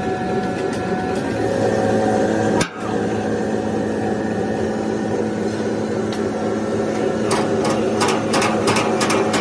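Sheet-metal press running with a steady motor hum. Near the end comes a quick run of sharp metal knocks and clicks as the steel bumper is shifted on the die.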